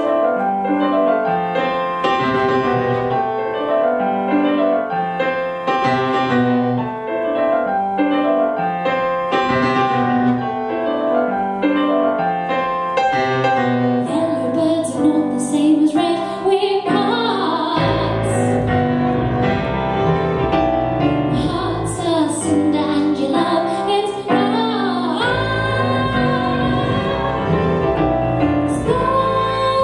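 Live folk band playing: keyboard and fiddle carry a repeating figure, a woman's singing voice comes in about halfway through, and low double-bass notes join at about two-thirds of the way.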